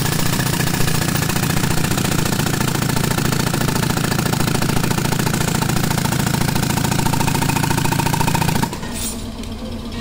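Pneumatic concrete breaker (jackhammer), powered by a tractor-driven air compressor, hammering steadily and rapidly into a concrete slab. It stops suddenly near the end, leaving a quieter hiss.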